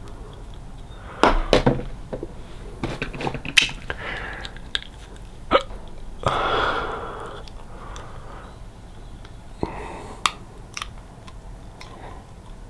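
Clear plastic aligner trays being pushed onto the upper teeth by hand: several sharp clicks and snaps of the plastic against the teeth, with mouth and breath noises between them and one longer breathy hiss partway through. The upper tray is not yet seating properly.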